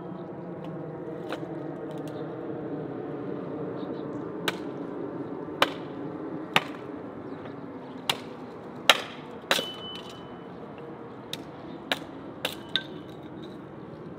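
About ten sharp, irregularly spaced knocks and clinks of kitchenware, one ringing briefly, over a steady low hum.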